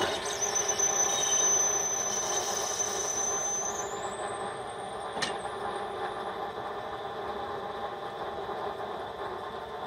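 Motor-driven cutaway radial aircraft engine display starting up abruptly and turning its crankshaft, rods and propeller: a steady mechanical whir with a high whine that rises in pitch about four seconds in, and a single click about five seconds in.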